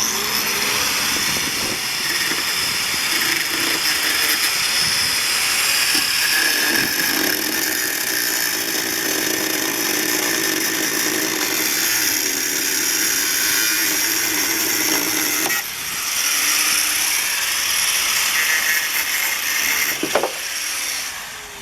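A power tool cutting through a car's rusted quarter-panel sheet metal, running steadily with a dense rattle. It breaks off briefly about two-thirds of the way through, then stops near the end as the panel comes free.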